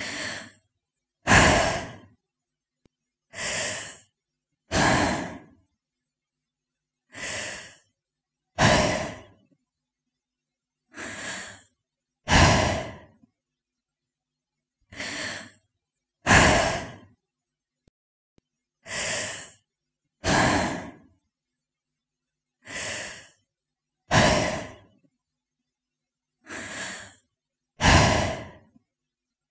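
A woman breathing slowly and audibly, a sighing breath cycle: a softer breath followed about a second later by a louder one, the pair repeating roughly every four seconds.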